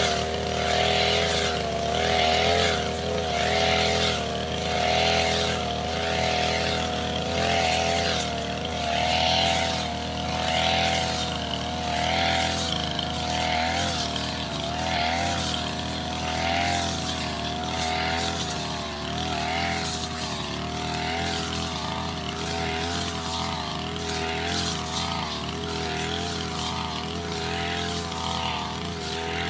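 Backpack brush cutter with a circular blade running at high speed while cutting tall grass, its engine note steady and the hiss of the blade through the grass swelling and fading with each sweep, about once a second.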